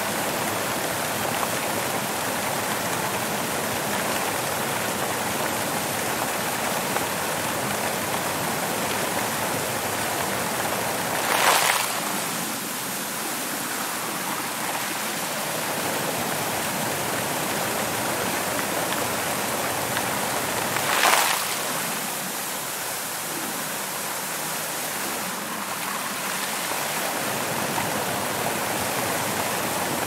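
Water from a tiered stone fountain falling steadily from the rim of its upper basin and splashing into the pool below. There are two brief louder rushes, about ten seconds apart.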